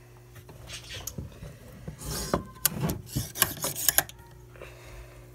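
A fishing rod handled on a wooden tabletop: scraping and rubbing against the wood, with a run of sharp clicks and knocks in the second half.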